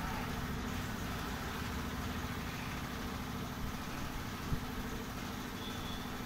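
A steady engine hum, like a vehicle idling, with a constant low rumble and one short knock about two-thirds of the way through.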